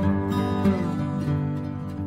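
Background music: acoustic guitar, plucked and strummed, with some sliding notes.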